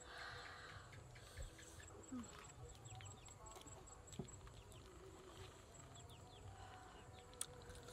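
Quiet rural ambience with faint birds giving many short, repeated chirps, and a few soft sharp taps.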